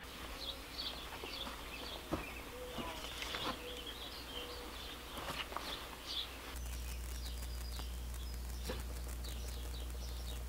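Songbirds chirping and calling outdoors, short scattered calls, with a few light clicks. About two-thirds of the way through, a steady low hum comes in under the birdsong.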